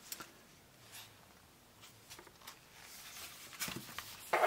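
Faint rustling and a few light clicks of a cardboard CD case being handled and opened.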